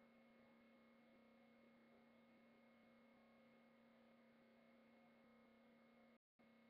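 Near silence with a faint, steady electrical hum of several constant tones. It cuts out completely for a moment near the end.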